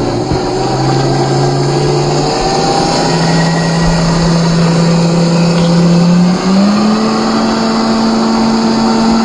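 A 1/10-scale RC car's 540-size brushed electric motor and gears whine at a steady pitch that steps up twice, with a rush of tyres over gravel underneath.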